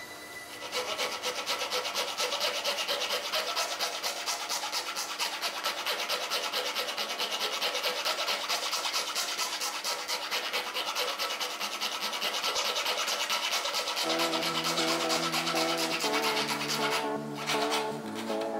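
Small needle file rasping back and forth in a slot of a plywood frame piece, with quick even strokes that run on without a break. Music comes in faintly near the end.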